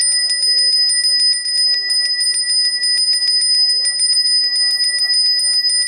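A Balinese priest's hand bell (genta) rung rapidly and without pause, a bright high ringing kept going by quick, even strikes of the clapper.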